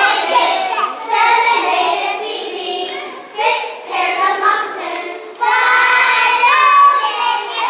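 A group of preschool children singing a song together, growing louder with longer held notes about two-thirds of the way in.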